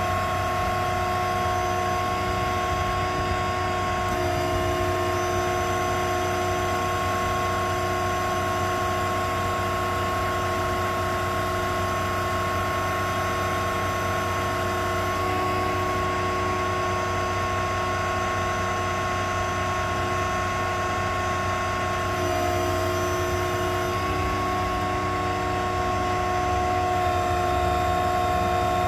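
Truck-mounted Auto Crane service crane running during boom operation: a steady mechanical whine over a low hum that shifts slightly in pitch several times as the crane's functions change.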